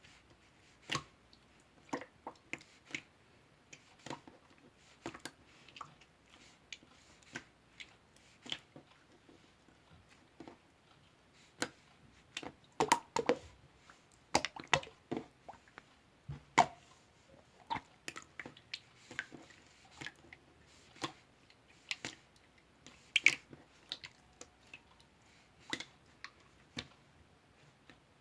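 Irregular small clicks and crackling snaps, sometimes in quick clusters, busiest about halfway through.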